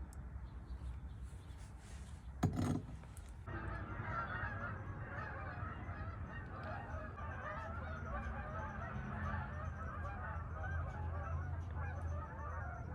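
Thick white bean soup pouring, a dense wet gurgling and splashing that starts about three and a half seconds in and keeps going. Just before it, a brief loud clatter about two and a half seconds in.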